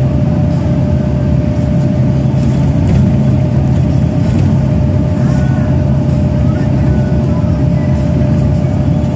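Steady drone of a bus's engine and tyre noise heard from inside the cabin as the bus cruises along the highway, with a steady thin whine over the low rumble.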